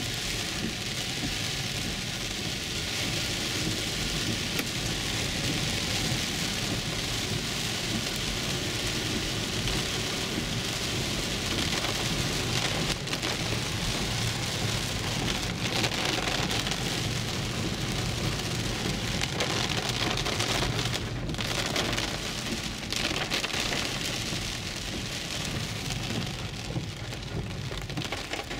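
Heavy rain pelting a car's roof and windshield, heard from inside the cabin while driving: a dense, steady hiss with a few sharper knocks here and there.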